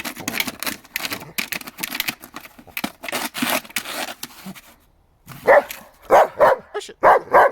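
German Shepherd chewing and worrying at a chair, a rapid run of crunching and scraping clicks. After a brief pause about five seconds in, the dog barks several times in quick succession.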